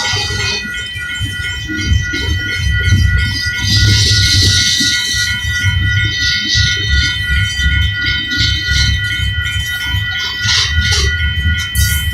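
Railroad crossing bell ringing continuously over the low rumble and clatter of an empty coal train's cars rolling past.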